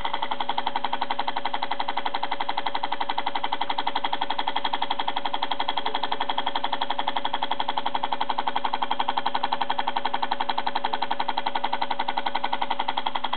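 Homemade solenoid motor built from hard-drive parts running steadily. Its relay and the drive's head-arm actuator pulse once per turn, giving a rapid, even clicking over a steady hum.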